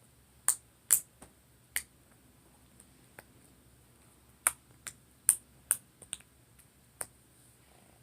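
Slime being kneaded and mixed by hand, giving about a dozen sharp, irregular clicks and pops as air pockets burst. The slime is a clicky one.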